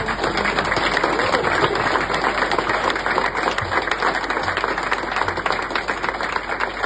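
A small group of people applauding, many hands clapping together, easing off slightly near the end.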